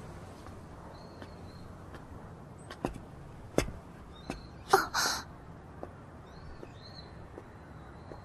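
Footsteps of sneakers on paved stone, a few light steps a little past two seconds in and then two louder scuffing steps about five seconds in. Faint bird chirps can be heard in the background.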